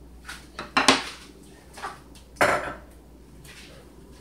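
Kitchenware being handled: a few separate clinks and knocks of bowls and utensils, the loudest about a second in and another about two and a half seconds in.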